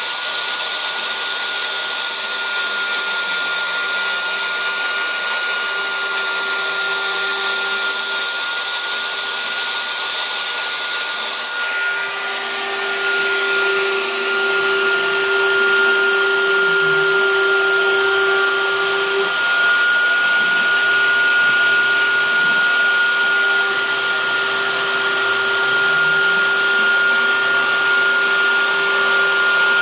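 CNC router spindle running with a steady high whine while its bit mills a curved profile into a wooden trim board. About twelve seconds in, part of the higher hiss drops away and a lower hum comes up.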